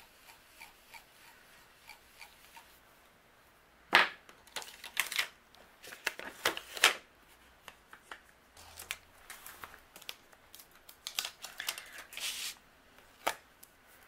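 Paper and stencil being handled on a craft mat: a few faint soft dabs of an ink blending brush at first, then a sharp snap about four seconds in and a run of short rustles, scrapes and clicks as the stencil comes off and the cardstock panel is lifted and moved.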